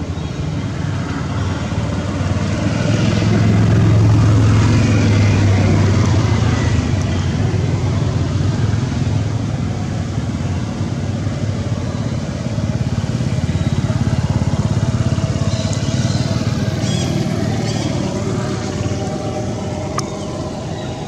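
A motor vehicle engine running, a steady low hum that swells louder about four seconds in and again near the middle.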